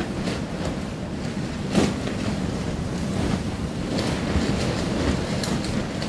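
Rough sea surf breaking and crashing against rocks, with wind buffeting the microphone and a steady rumble; the loudest crash comes about two seconds in.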